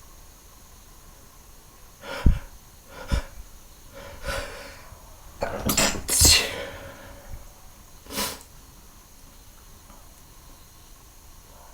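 A person sneezing over and over: a run of about six short sneezes, some let out and some stifled, beginning about two seconds in and ending past the middle. The loudest pair comes near the middle.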